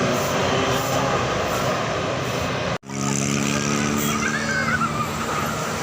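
Bus telolet horn sounding held multi-tone chords over traffic and engine noise. The sound breaks off abruptly for an instant at an edit about three seconds in, then resumes with a fresh chord.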